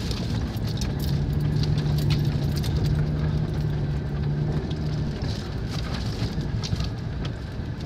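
A vehicle's engine running steadily as it climbs a rough gravel road, heard from inside the cab, with tyre and road noise and scattered small clicks and rattles from the stones. The steady engine hum fades about five seconds in.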